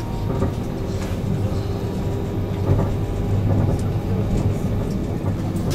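Virgin Trains Pendolino (Class 390 electric train) running at speed, heard inside the passenger coach as a steady low rumble.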